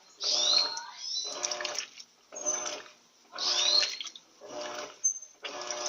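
Turbo LT13B 13 kg washing machine agitating a load of bedding. The agitator drives back and forth in short strokes about once a second, each stroke carrying a motor hum and water sloshing, with brief pauses between strokes.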